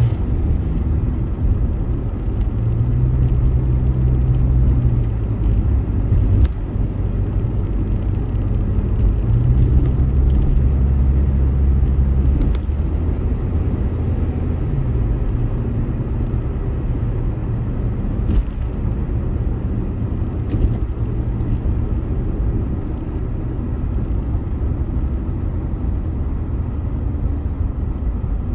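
Car driving on city streets, heard from inside: a steady low road and engine rumble, with a low hum that swells and fades as the car speeds up and slows, and a few faint knocks.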